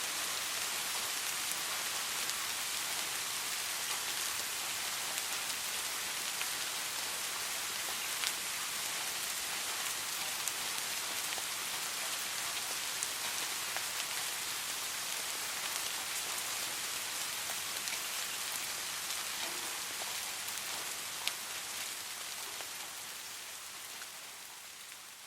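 Soft steady rain: an even hiss with scattered individual drops ticking, fading out over the last few seconds.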